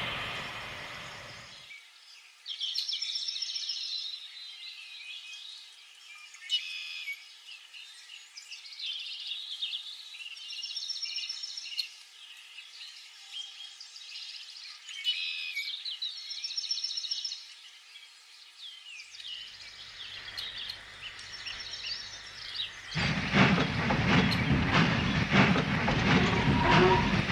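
Birds chirping in short repeated calls over a faint steady hiss, after a train's running noise fades away in the first couple of seconds. About 23 seconds in, a loud rushing, rumbling noise starts suddenly and carries on to the end.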